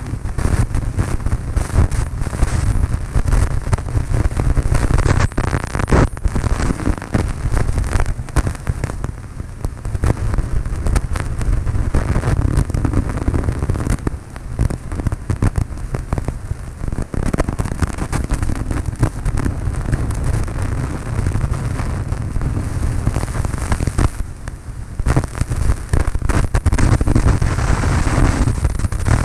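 Cabin noise of a Cessna 152's engine and propeller droning in flight, with wind buffeting the microphone into a crackling rumble.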